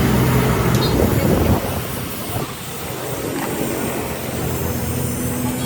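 Steady mechanical running noise with a low hum, louder for the first second and a half, then settling lower.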